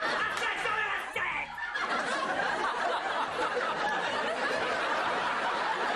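Studio audience laughing, the laughter thickening about two seconds in and then holding steady.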